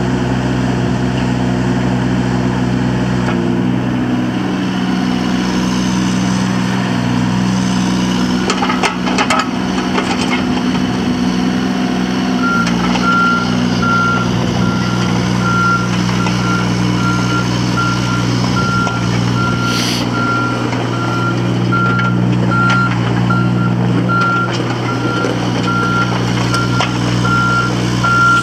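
John Deere 17G mini excavator's diesel engine running steadily, its pitch shifting as the hydraulics are worked, with a few knocks about a third of the way in. From a little before halfway, a warning alarm beeps in a steady, regular rhythm over the engine.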